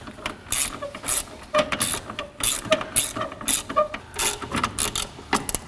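A wrench tightening steel brake line flare nuts on a master cylinder: a run of irregular metallic clicks and ticks.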